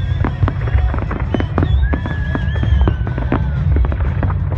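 A fireworks display: rapid bangs and crackles, several a second, over a steady low rumble, with a few long wavering high whistling tones above.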